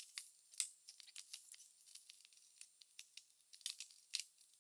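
Faint, scattered clicks of small metal combination padlocks being handled, with an opened shackle being worked on the chest's hasp.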